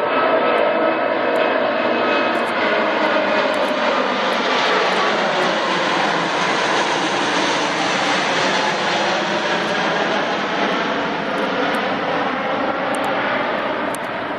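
Airbus A380's four jet engines running loud as the airliner passes by: a dense engine noise with faint whining tones that slowly fall in pitch, easing off gradually toward the end.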